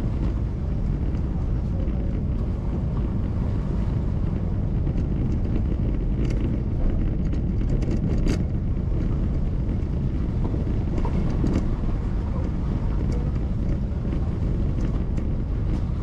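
Steady low rumble of a car on the move: engine, road and wind noise, with wind buffeting the microphone. A few faint clicks come through about six and eight seconds in.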